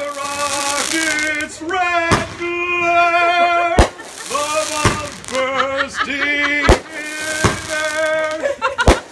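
Fireworks going off in a quick series of sharp bangs, about six in all, over a singing voice holding long, slightly wavering notes.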